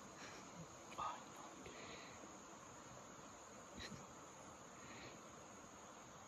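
Faint forest ambience: a steady, high-pitched insect chorus, with a brief louder sound about a second in and a sharp click near four seconds.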